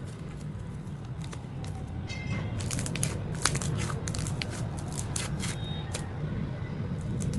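Thick cloud cream slime being pressed and stretched by hand, giving irregular sticky clicks and pops that come thickest in the middle.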